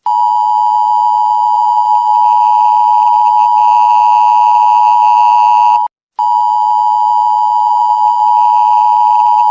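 Emergency Alert System attention signal: a loud, steady two-tone alert just under 1 kHz, broken by a split-second dropout about six seconds in.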